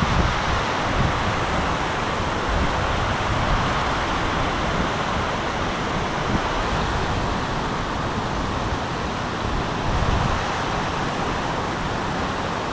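Wind buffeting the microphone outdoors: a steady rushing hiss with irregular low rumbles.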